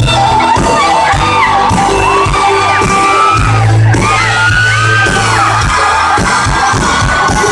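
Live country music played loud by a full band, with bass notes, steady drum beats and a sung vocal line, while the crowd whoops and yells.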